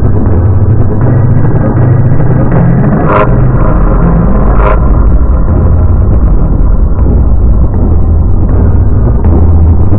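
Cartoon mouse's laugh, heavily distorted and bass-boosted into a loud, clipped rumble, with two sharp cracks about a second and a half apart.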